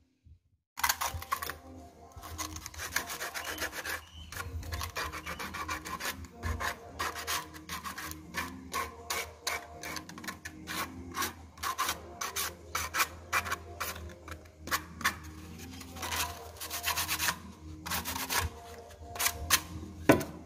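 Hand sanding of cut PVC pipe with sandpaper: quick rasping back-and-forth strokes that start about a second in and go on in uneven runs, several strokes a second, smoothing the cut plastic.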